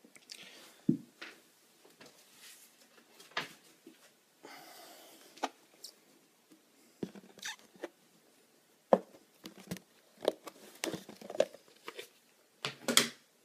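Handling noises of plastic tarantula containers and packing: a series of separate knocks, taps and rustles as a clear plastic enclosure is lifted, moved and set down on a table.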